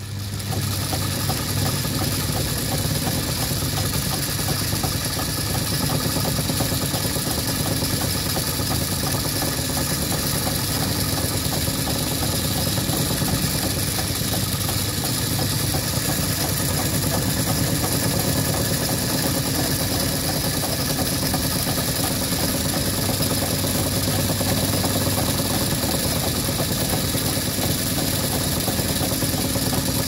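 Metal lathe running steadily with a hex nut spinning in its three-jaw chuck while a cutting tool chamfers the inside of the nut's bore.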